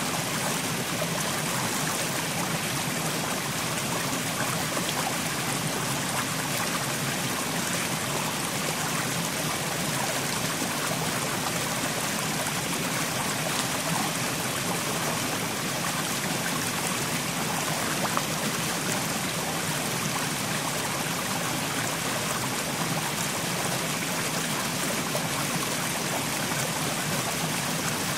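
Mountain stream flowing steadily over rocks: a continuous, even rush of water with trickling.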